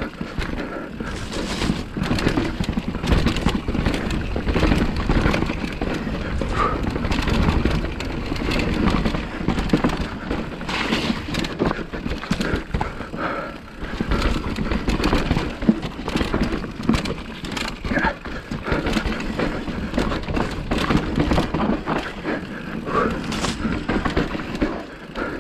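Ride noise of a Specialized Kenevo e-mountain bike on a fast dirt singletrack descent: tyres rolling over dirt and roots, and chain and frame rattling with constant irregular knocks over a low rumble.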